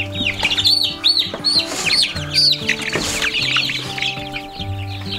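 A crowd of young Red Star chicks peeping, many quick high chirps overlapping without a break, over background music with long held notes.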